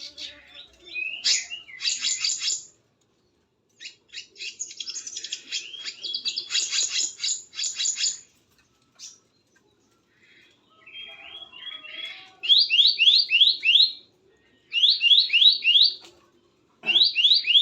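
Small songbirds calling: rapid high chattering notes through the first half. Then, from about two-thirds of the way in, three louder, almost identical runs of five or so quick rising whistled notes, a second or two apart.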